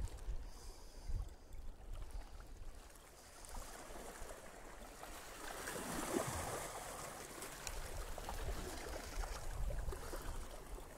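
Sea water lapping and sloshing against the rocks, with low wind rumble on the microphone in the first seconds. A little after the middle, splashing as a small hooked mackerel is drawn up to the surface.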